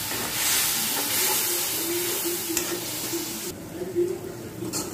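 Onion-and-spice masala sizzling in hot oil in a pan just after a little water has gone in, with a spoon stirring it. The sizzle cuts back sharply about three and a half seconds in, leaving a few clicks of the spoon against the pan near the end.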